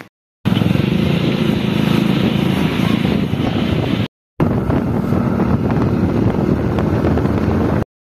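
Motorcycle riding: the engine running steadily under loud wind noise on the microphone, broken by two brief cuts to silence, just after the start and about four seconds in.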